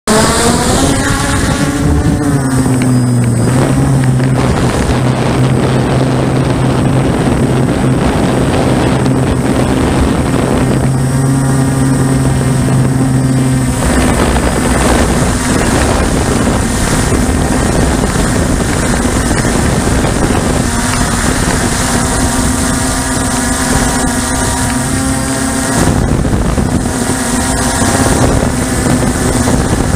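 Onboard sound of a radio-controlled model aircraft's motor and propeller. The whine rises as it throttles up for takeoff in the first couple of seconds, then holds as a steady drone with small changes in pitch, mixed with wind rushing over the microphone.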